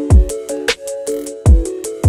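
Electronic background music: deep kick drums with a falling boom, crisp hi-hat and snare hits, and a steady synth melody.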